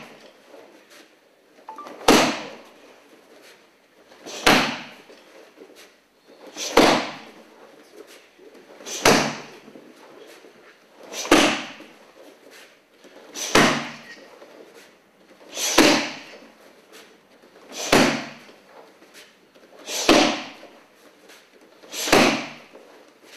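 Kicks landing one after another on hand-held karate kick pads: a sharp smack about every two and a quarter seconds, ten in all, each ringing briefly in the hall.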